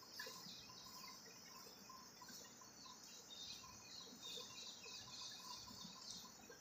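Faint, repeated hiss of milk squirting into a steel bucket part-full of milk as a cow is milked by hand.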